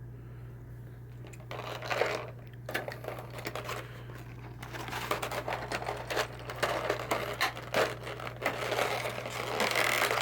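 Plastic packaging crinkling and crackling with many small clicks as figure parts are pulled from their plastic blister tray and wrapping, starting about a second and a half in, over a steady low hum.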